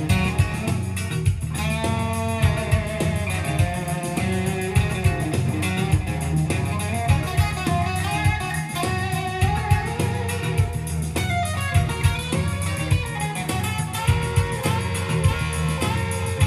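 Live looped blues-rock band music: a BeatBuddy drum-machine beat with looped electric guitar and bass parts from a Boomerang looper, and a lead line with bending notes over the top.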